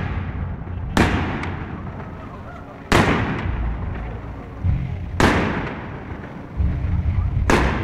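Aerial fireworks shells exploding: four sharp bangs roughly two seconds apart, each trailing off in a long echo, over a low rumble.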